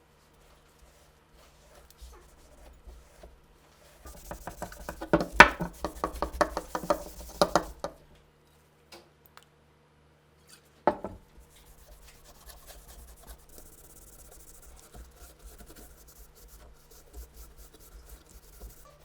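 Hand work on machine gun parts: a quick run of clicks and knocks for about four seconds, a single sharp click a few seconds later, then light rubbing.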